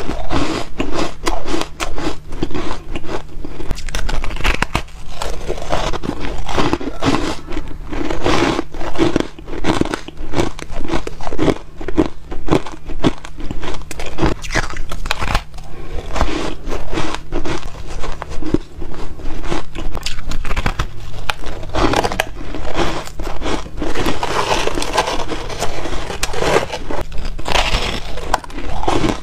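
Close-miked biting and chewing of dry, frosty blocks of refrozen ice: a dense run of crisp crunches and crackles, several a second.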